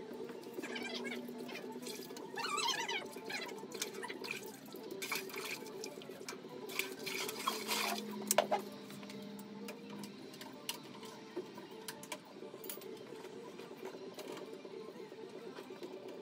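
Water sloshing and dripping, loudest about seven to nine seconds in, over a steady low hum.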